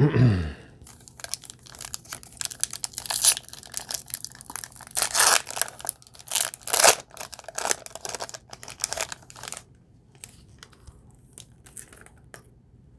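A trading-card foil pack being torn open and its wrapper crinkled: a short falling sweep at the start, then irregular crackling and tearing that thins to faint rustles about ten seconds in.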